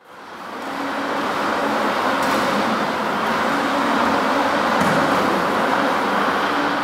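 A loud, steady rushing noise with a faint low hum under it. It swells in over about the first second and holds even throughout.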